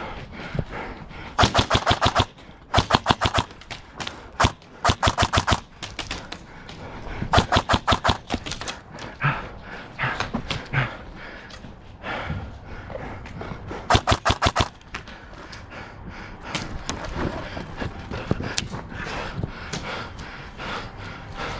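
Airsoft rifle firing several short full-auto bursts, each a rapid string of evenly spaced shots lasting under a second, with a few quieter scattered clicks between them.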